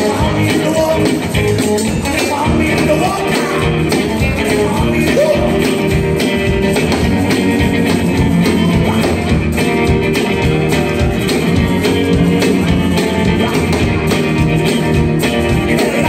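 Live rockabilly band playing loudly: upright bass, electric guitars and drums, with a male voice singing during the first few seconds.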